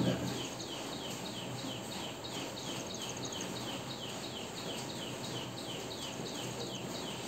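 Faint, steady run of short falling chirps from a small animal, about three a second, over a low room hum.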